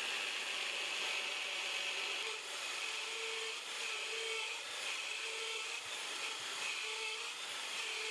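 Drill press boring a hole into a block of HDPE plastic: a steady hiss of the bit cutting, with a faint hum that swells about once a second.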